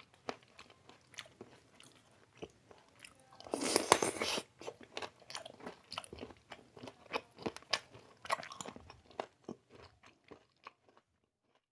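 Close-up eating sounds of chicken biryani and curry: a scatter of small clicks and chewing noises, with a louder crunch lasting about a second about three and a half seconds in. The sounds stop shortly before the end.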